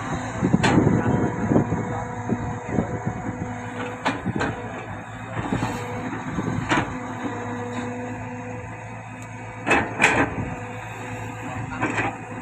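Diesel engine of heavy earthmoving machinery, a dump truck and bulldozer, running steadily, with sharp knocks and bangs cutting in about seven times, the loudest two close together near the end.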